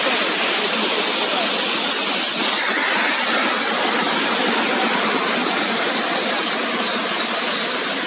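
Small waterfall spilling over rock ledges into a pool: a steady rushing of water.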